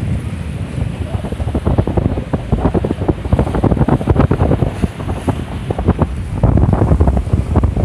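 Strong wind buffeting the microphone over waves splashing on the lake, a heavy rumble with irregular splashy crackle.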